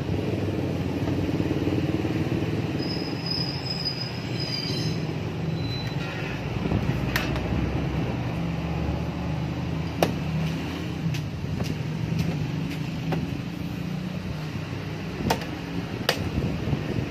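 Plastic body panel of a Yamaha NMAX scooter being pressed back into place by hand, giving several sharp clicks as it seats, over a steady low rumble.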